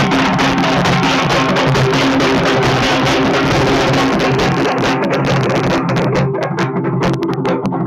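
Procession drum band playing a fast, steady rhythm on large shoulder-slung barrel drums and a pair of small drums, loud and continuous, over a few held low tones.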